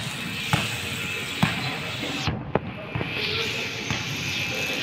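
A basketball bouncing on a wooden gym floor, about five separate bounces, roughly one a second.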